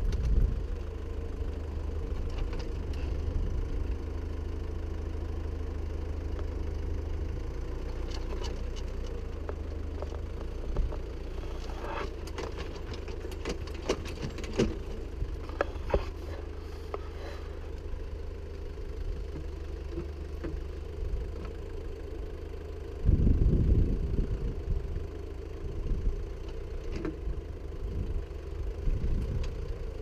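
Homemade backhoe's Mercedes-Benz 123 2.0-litre engine running steadily while the arm digs, with scattered clanks and scrapes of the bucket in stony soil. About two-thirds of the way through, a louder, rougher low rumble rises for a few seconds.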